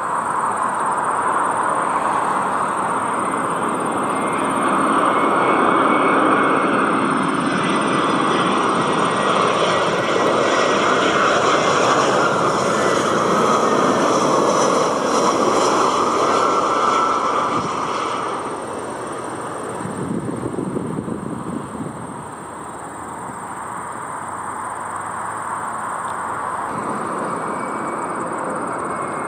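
Narrow-body jet airliner passing by, its engine noise and whine building to a loud peak for several seconds and then dropping away about two-thirds of the way through.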